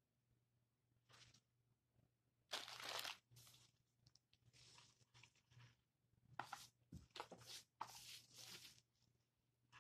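Dried Spanish moss being pulled apart and pressed down into a flowerpot: a series of crisp rustling, tearing crunches. The loudest comes about two and a half seconds in, and a cluster follows between about six and a half and nine seconds.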